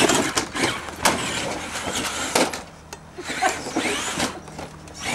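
Electric motor and drivetrain of a Traxxas Summit RC monster truck whining, rising and falling in pitch as the throttle is worked. Several knocks come from its tyres and chassis bumping over wooden log rounds.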